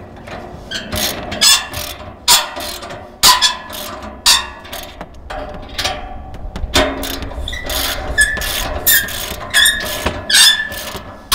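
Socket ratchet wrench clicking in repeated back-and-forth strokes as it tightens the nuts of a hitch stabilizer clamp on a receiver-hitch carrier. A short high squeak rides on several strokes in the second half.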